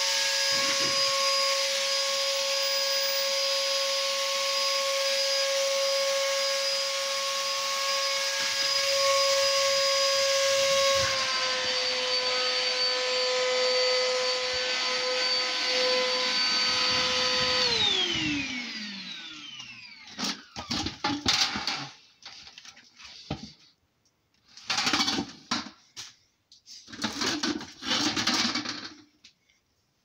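Industrial shop vac motor running with a steady whine that drops slightly in pitch about eleven seconds in. It is then switched off and winds down with a falling whine. This is followed by several short, separate bursts of handling noise.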